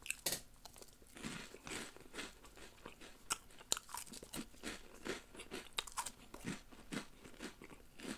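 A person chewing crunchy caramel-coated peanut puffs close to the microphone: a quick, irregular run of crisp crunches.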